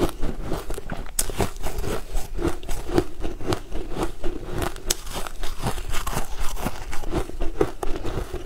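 Close-miked chewing of a crumb-coated sponge cake: steady moist mouth sounds with many small irregular crackles and clicks.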